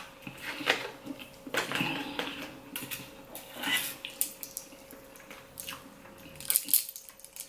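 Quiet close-up eating sounds: chewing, and a fork and fingers picking at grilled flounder in a crinkly foil tray, giving scattered light clicks and soft crackles. Near the end, a lemon wedge is squeezed over the fish, and a quick cluster of sharp clicks follows.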